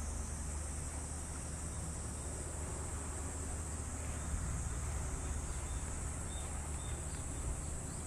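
A steady, high-pitched chorus of insects shrilling without a break, over a steady low rumble.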